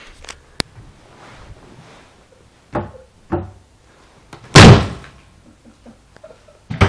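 A wooden dresser drawer slammed shut with one loud bang about two-thirds of the way through, crushing a small light bulb inside it, with a short ringing tail. Lighter knocks of wood come before it and another sharp knock near the end.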